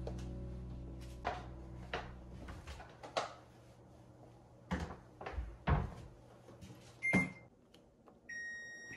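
Scattered plastic knocks and clacks of hands working at a Hitachi drum washer-dryer, about seven of them spread over several seconds. A little past seven seconds the washer's control panel gives a single short beep, and near the end it starts a short tune of electronic beeps as the wash cycle is started.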